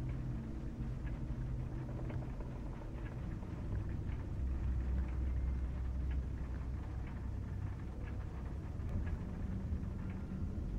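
Low, steady droning rumble with faint, irregular clicks over it; the drone drops deeper about four seconds in.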